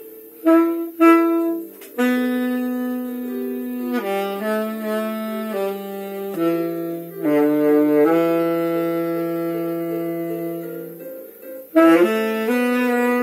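Solo saxophone playing a slow melody of held notes: two short notes, then a phrase that ends on one long note that fades away, a brief pause, and the playing starts again near the end.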